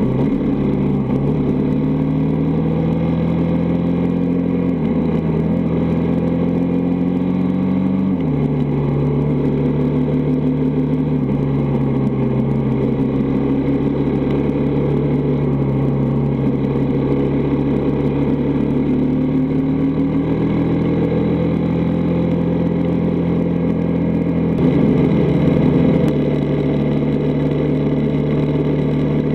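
Dirt bike engine heard on board, accelerating up through the gears: its pitch climbs and drops back with each shift three or four times in the first ten seconds or so, then it holds a steady cruising speed. It gets briefly louder about 25 seconds in.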